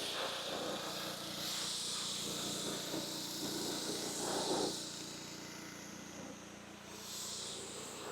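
Simpson gas pressure washer's Honda GX engine running steadily. Water spray hisses from about a second and a half in, breaks off briefly near the end, then starts again, as the aluminum cleaner is rinsed off.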